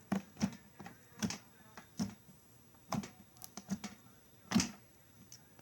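Clear homemade slime (clear glue, baking soda and contact lens solution) worked in the hands, giving a string of sharp, irregular clicks and pops, about a dozen, the loudest near the end.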